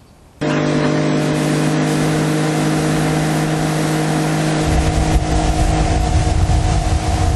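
Boat's outboard motor running steadily at speed under a hiss of rushing water and air, cutting in suddenly about half a second in. A heavy low rumble joins a little past the middle.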